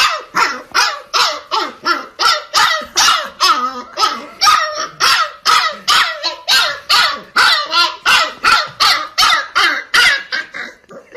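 Puppy barking over and over in quick, even succession, about three high yelping barks a second.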